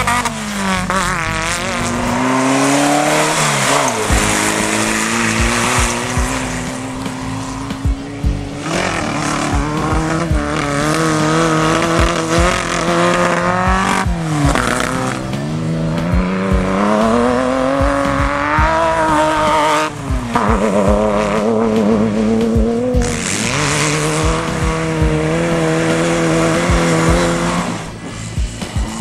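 Off-road race buggy engines revving hard under full throttle, several cars in turn. The pitch climbs and drops repeatedly with gear changes and throttle lifts.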